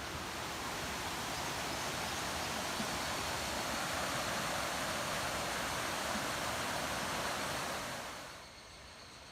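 Steady rush of flowing water, a mountain stream running hard, which drops away sharply about eight seconds in.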